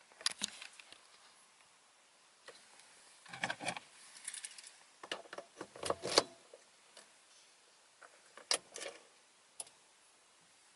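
Irregular clicks and knocks, some in quick clusters with a low thump and one short hiss near the middle, from a Skoda Octavia 1.6 TDI before a cold start, the weird noise the owner is documenting.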